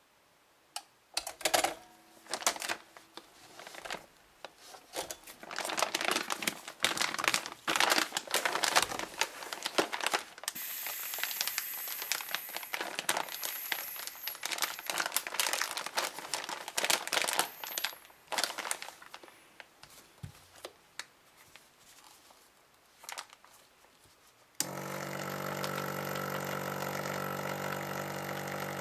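Clear plastic bag crinkling and rustling as it is handled, with sharp clicks. Near the end a small HermaSeal electric vacuum pump switches on suddenly and runs with a steady hum, drawing the air out of the bag.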